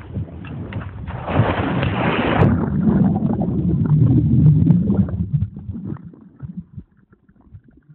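Water splashing and churning right against the camera's microphone as it dips at the surface, with a rushing hiss from about one to two and a half seconds in and a low churning rumble up to about five seconds, then fading to scattered drips and splashes.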